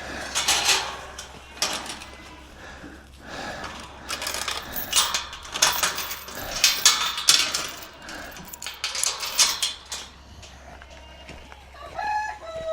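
Hay being handled and shifted in a feeder, heard as several bursts of rustling and clattering. Near the end comes a short animal call.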